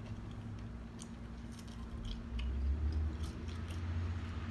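A person chewing french fries with a few small, soft mouth clicks. A low background rumble swells from about halfway through.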